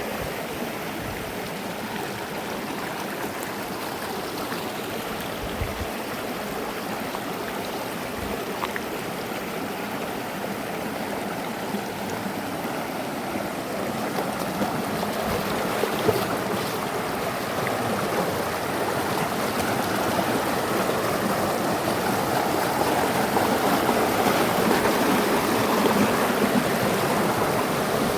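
River water flowing over rocks: a steady rush that grows louder from about halfway through.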